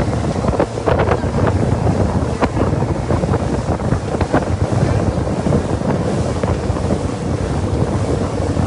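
Wind buffeting the microphone in a steady, loud low rumble, with a few brief crackles.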